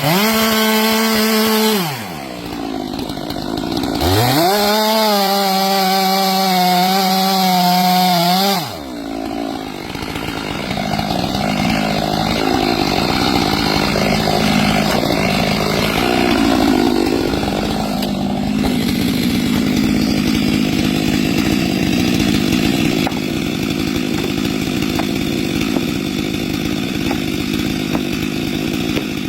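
Two-stroke chainsaw revved at full throttle for a couple of seconds, dropping back, then revved up again and held for about four seconds. After that it runs on steadily with a rougher, noisier sound to the end.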